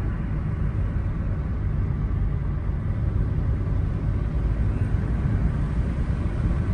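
Steady low rumble of road and engine noise inside a moving car driving along a paved mountain road.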